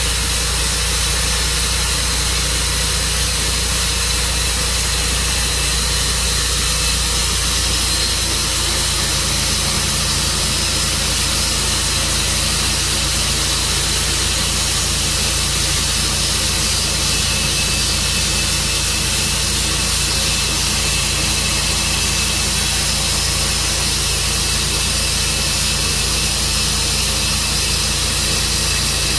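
An engine running steadily under an even hiss, its low hum shifting slightly about eight seconds in.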